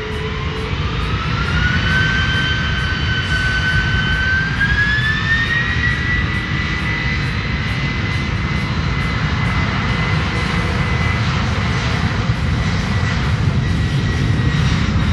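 Japan Airlines Boeing 767's twin jet engines spooling up to takeoff thrust as the jet starts its takeoff roll. A whine climbs in two steps over the first six seconds, then holds steady over a heavy rumble.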